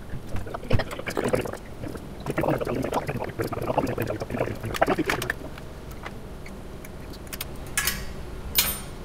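Hands and a hex key working screws on a cryostat's metal vacuum shield: a sharp click, then a few seconds of clinking, rattling and scraping of metal. Near the end come two short hisses, over a steady low hum.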